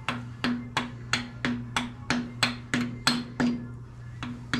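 Hammer tapping a timing-chain cam sprocket onto the camshaft nose of a small-block Chevy: a run of about a dozen light metallic strikes, roughly three a second, each with a brief ring, then a short pause and two more strikes near the end.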